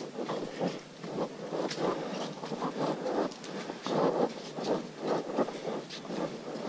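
Footsteps and rustling of a hiker walking down a muddy forest trail: irregular scuffing steps with crackles of leaves and brushed vegetation, about one or two a second.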